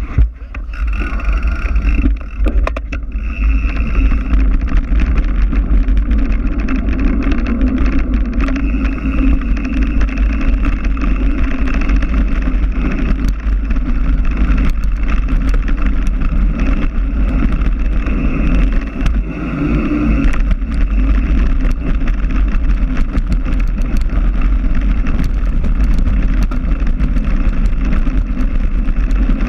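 Wind buffeting the microphone as a deep, steady rumble, with frequent sharp clicks and rattles of a mountain bike riding over a rough trail.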